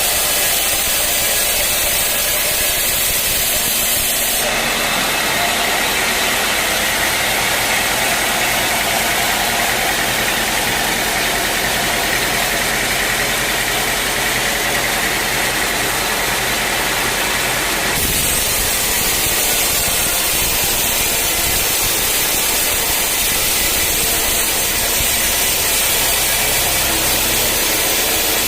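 Engine of a portable band sawmill running steadily. Its tone changes abruptly about four seconds in and changes back about eighteen seconds in.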